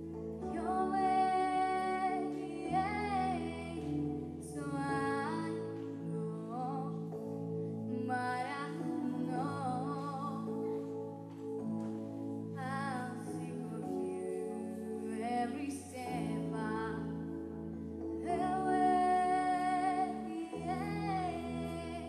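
Young girl singing a song into a handheld microphone over instrumental accompaniment, in sung phrases with pitch glides over sustained chords.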